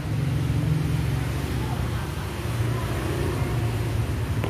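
A motor engine running steadily at idle, a low, even hum.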